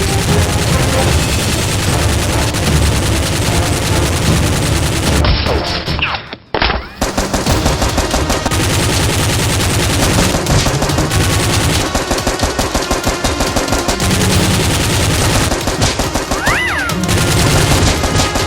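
Rapid automatic gunfire sound effects: dense, continuous bursts of shots, broken by a short gap about six seconds in, then resuming.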